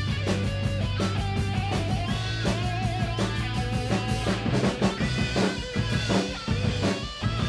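A drum kit played along to a rock recording with electric guitar: a steady stream of drum and cymbal hits over sustained and bending guitar notes.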